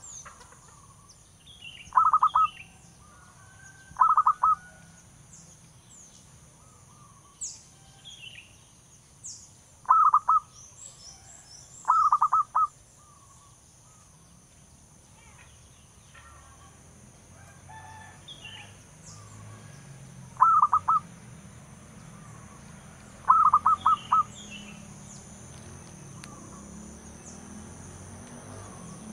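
Zebra dove (perkutut) calling: six short phrases of rapid staccato cooing notes, given in pairs about two seconds apart with longer pauses between the pairs.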